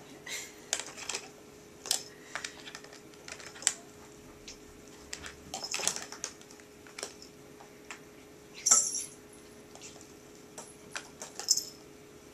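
A plastic ball-track cat toy being batted by cats: irregular small clicks, taps and short rattles of the ball and plastic, with the loudest clatter about nine seconds in.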